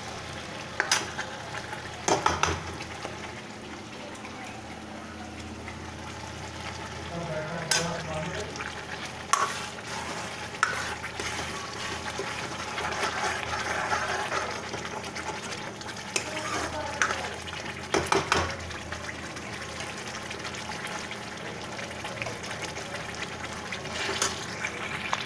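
Sarson ka saag sizzling in a metal kadai as a metal ladle stirs it. Sharp clinks sound every few seconds where the ladle strikes the pan.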